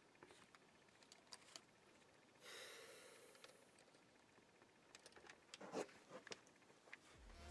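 Near silence, broken by a few faint clicks and a brief breathy rush about two and a half seconds in. Music comes in right at the end.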